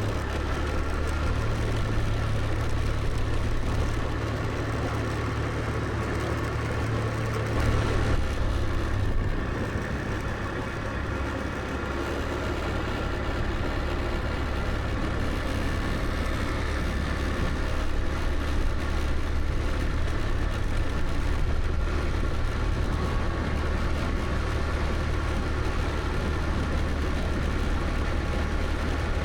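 Scooter engine running steadily while riding, with road and wind noise; the engine note drops about seven seconds in.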